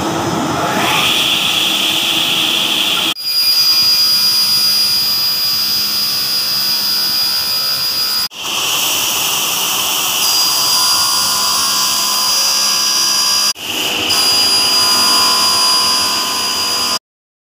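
Sliding table saw running and cutting through green MDF board: a steady, loud blade whine over the noise of the cut. It breaks off and starts again abruptly three times, then stops suddenly near the end.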